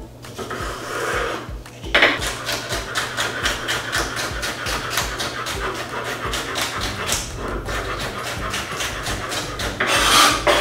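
Chef's knife dicing celery on a hard cutting board: a quick, steady run of chops, about four a second, beginning about two seconds in.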